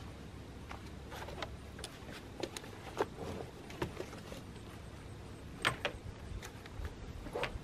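Scattered light knocks and clatter of camping gear being set down and packed into a pickup truck bed, with the sharpest knocks about three, five and a half, and seven and a half seconds in.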